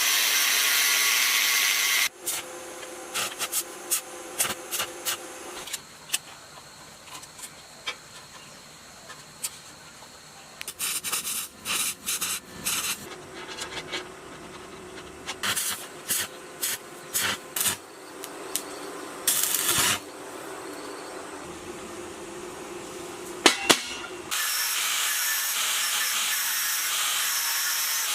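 Workshop work on a tiller under restoration. A loud steady hiss lasts about two seconds at the start and returns for the last few seconds. In between come quieter scraping and short clicks of hand tools on metal.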